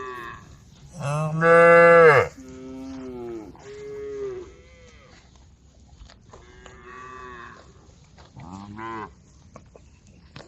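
Several cows mooing one after another. The loudest is a long, high moo about a second in, followed by shorter, lower moos and fainter calls later.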